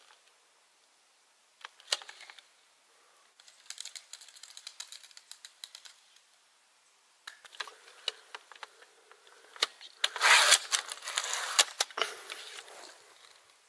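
Mechanical clicking and rattling from a repeating crossbow-style slingshot rifle being handled and worked: one sharp click about two seconds in, a run of small clicks, then a dense rattle of clicks that is loudest near the end.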